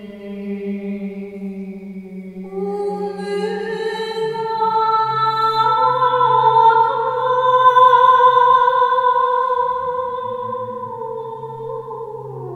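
Unaccompanied two-voice singing: a woman holds long notes that step upward and swell, loudest a little past the middle, over a man's low sustained tone that drops to a lower pitch a few seconds in.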